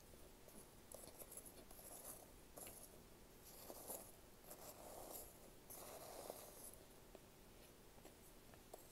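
Faint, soft chewing of a warm homemade microwave snack that is soft rather than crunchy, with small mouth sounds coming irregularly about once a second.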